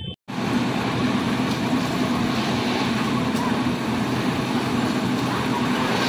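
Diesel engines of concrete mixer machines running steadily at work. The sound cuts in suddenly after a brief gap a fraction of a second in.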